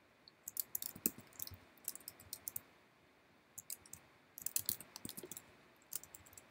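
Quick clicking of a computer keyboard and mouse: a burst of rapid clicks, a pause of about a second, then a second burst and a few more clicks near the end.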